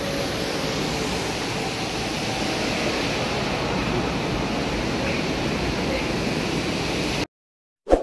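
Steady rush of an indoor waterfall, water pouring from a ceiling bowl into a pool. It cuts off abruptly near the end.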